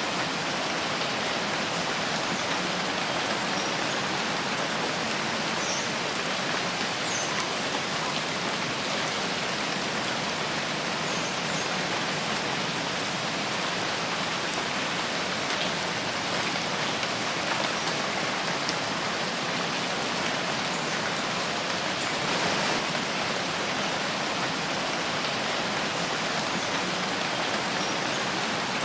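Steady rain falling in a forest, an even, unbroken hiss of drops.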